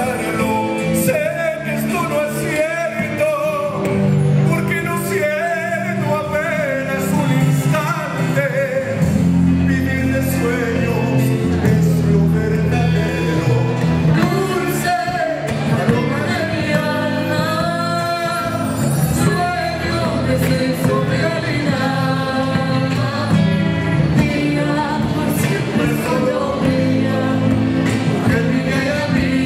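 Live band playing an Argentine samba: a man and a woman singing together over electric guitar, bass and hand drum, with the echo of a large hall.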